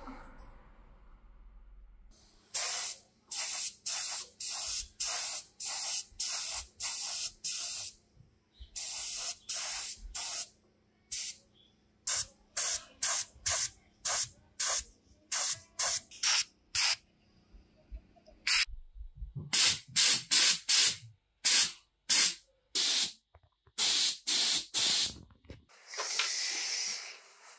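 A sprayer hissing in many short, sharp bursts, about one or two a second, with a longer spray near the end.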